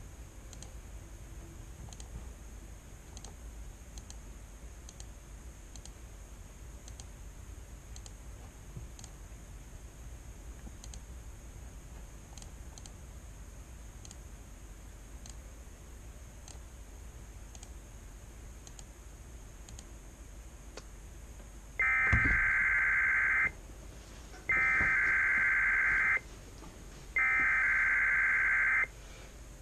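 Sage EAS ENDEC sending the SAME header of a Required Weekly Test: three loud, raspy screeches of data tones, each about one and a half seconds long and about a second apart, starting some 22 seconds in. Before them, only a faint hiss with faint ticks.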